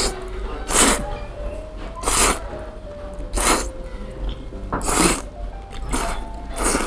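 A person slurping very thick, firm Yoshida-style udon noodles: about six short, sharp slurps, roughly one a second.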